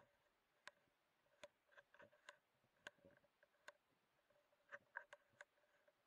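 Near silence, broken by about a dozen faint, irregular clicks from the Pulsar Digex C50 digital riflescope's controls and handling as its zoom is stepped up. Beneath them runs a faint steady electronic tone.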